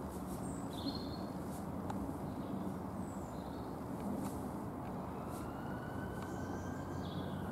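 Steady low background rumble with a faint distant siren that slowly rises and falls in the second half.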